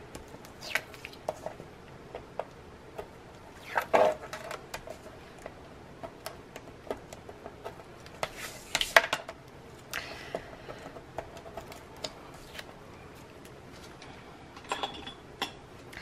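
Backing being picked and peeled off strips of 3/8 inch adhesive tape on a cardstock panel, with small scratches, taps and paper rustles. Louder rustles of the paper come about four seconds in and again around nine seconds.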